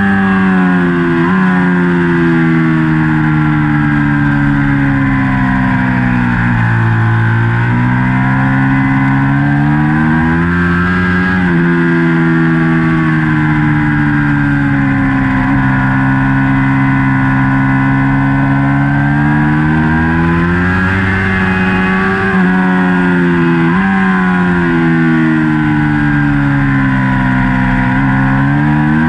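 A 2019 Ducati Panigale V4's 1103 cc V4 engine under race load, heard from a camera mounted on the bike: its pitch sinks for several seconds as the rider slows into corners, then climbs sharply as he gets back on the throttle, with a few quick blips at gear changes.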